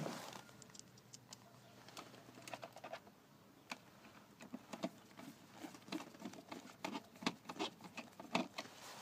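Faint, irregular small clicks and taps of a screwdriver and hands working at a small white plastic wiring connector in a child's battery ride-on car.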